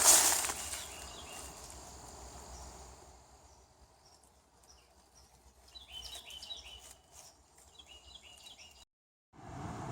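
Footsteps crunching on the ground at the start, fading away, then a bird singing several quick series of short chirps. The sound cuts out briefly near the end.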